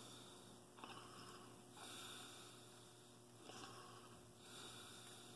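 Faint, slow breathing through the nose, with a few soft ticks as fingers pull apart orange peel.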